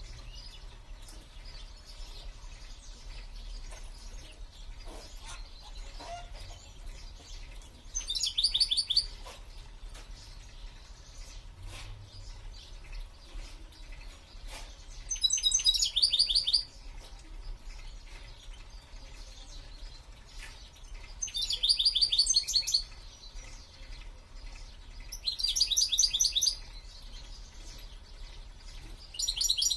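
Caged songbird singing short, fast song phrases, five in all, each about a second and a half long and several seconds apart, with soft chirps in between.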